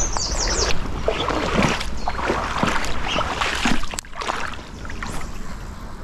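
Noise of a shallow river flowing, with wind on the microphone and scattered clicks and rustles from the rod and baitcasting reel being handled. It is louder for the first four seconds, then quieter.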